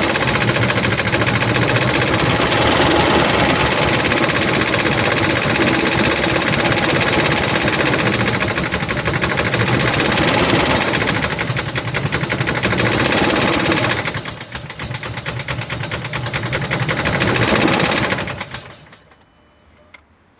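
2007 Dodge Ram 1500's 4.7-litre V8 running with a rhythmic knock, the sound of an engine with no compression in cylinder 1. The engine is shut off near the end.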